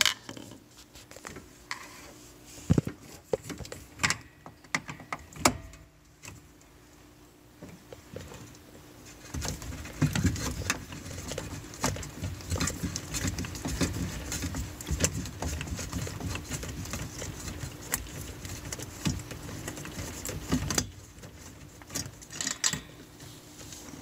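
Screwdriver clicking and scraping on metal as a Phillips screw is backed out of a dishwasher's drain solenoid bracket. There are a few sharp knocks near the start, then dense clicking and rattling from about ten seconds in until shortly before the end, over a faint steady hum.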